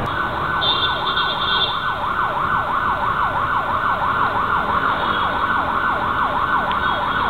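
A siren in a fast yelp, its pitch sweeping over and over about three times a second. It starts abruptly.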